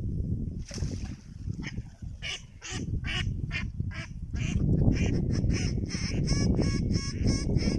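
Hen mallard quacking in a long rapid run, about three quacks a second, starting about two seconds in, with a low rumble underneath from about four seconds in.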